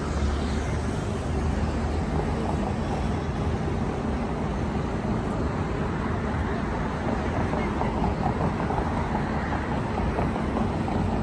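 Steady city street ambience: road traffic running alongside, with the indistinct voices of passing pedestrians.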